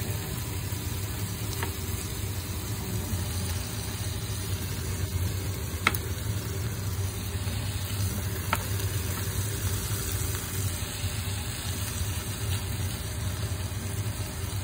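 Steady low mechanical hum of a kitchen appliance running while cooking, with a few sharp clicks of a utensil against the pan and the corned beef tin.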